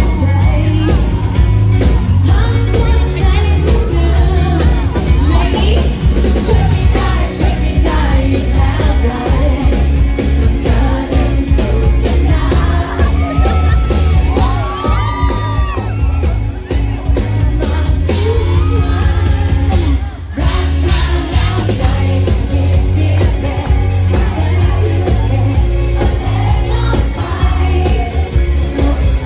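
Live pop band playing with a woman singing lead into a handheld microphone over heavy bass and drums. The music breaks off for a moment about two-thirds of the way through.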